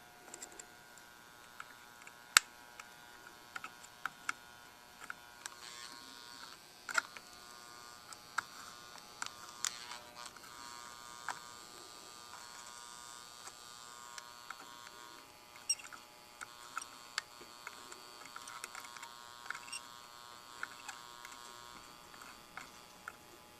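Soldering gun buzzing steadily while solder is melted onto a battery terminal, with scattered small clicks and a hiss in the middle stretch.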